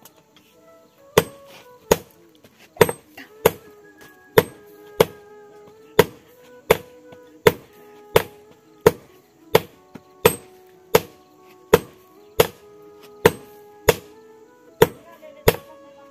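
Hand hammer forging red-hot steel held in tongs on a small anvil: a steady beat of sharp strikes, about twenty of them, roughly one every three-quarters of a second, starting about a second in.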